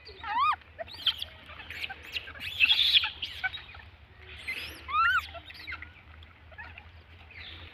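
High-pitched animal calls: two short arching calls, one near the start and one about five seconds in, with scattered chirps between them and a louder burst about two and a half seconds in, over a low steady hum.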